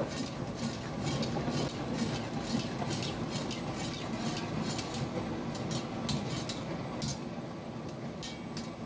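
Metal spatula clinking and scraping against a karahi wok while the mutton karahi is stirred, with sharp clinks coming irregularly about two or three times a second over a steady low kitchen hubbub.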